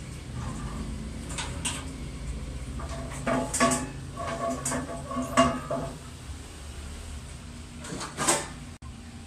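Kitchen clatter: a few sharp knocks and ringing clinks of dishes and utensils being handled, over a low steady background rumble.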